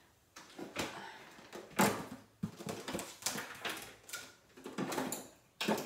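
Makeup items being handled at close range: an irregular run of small clicks, knocks and rustles, the loudest a little under two seconds in.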